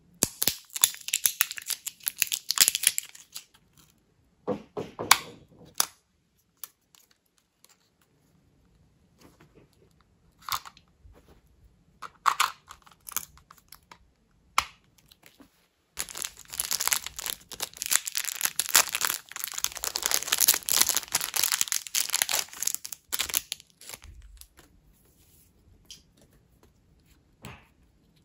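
Packaging being torn and crinkled open: a series of tearing and crinkling bursts, with the longest stretch lasting about seven seconds past the middle.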